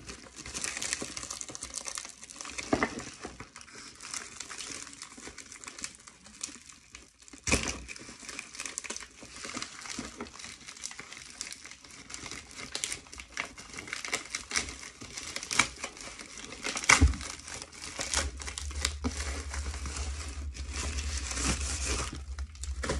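Plastic bubble mailer being torn open and handled, a steady crinkling with sharp crackles and snaps and a couple of louder knocks. A low rumble joins in the last few seconds.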